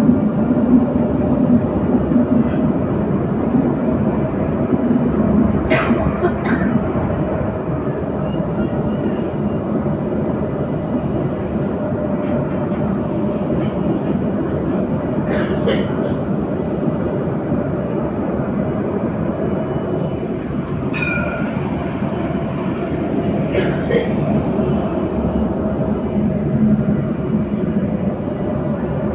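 Inside a moving Jerusalem Light Rail tram (Alstom Citadis): a steady running rumble with a constant motor hum, and a sharp click about every nine seconds.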